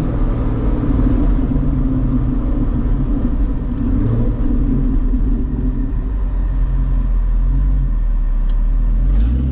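Straight-piped C6 Corvette's LS2 V8 running steadily at low revs while driving, with a deep, unmuffled exhaust heard from inside the cabin.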